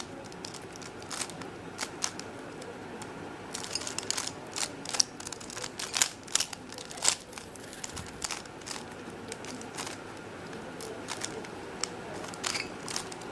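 A plastic 3x3 Rubik's cube being turned by hand: irregular runs of sharp clicks and clacks as its layers snap round, with short pauses between runs, while a move sequence is carried out.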